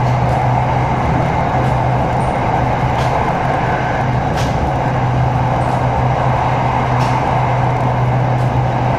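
SRT Red Line electric commuter train running between stations, heard from inside the carriage: a steady rumble and drone over a constant low hum, with a few faint ticks.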